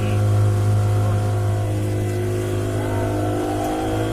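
Motorboat engine running steadily with a strong low hum. Its pitch rises slightly about three seconds in.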